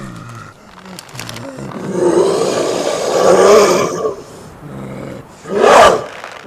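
Designed female werewolf transformation sound effect: bestial, voice-like growls and roars that swell about two to four seconds in, then a loud roaring cry just before six seconds.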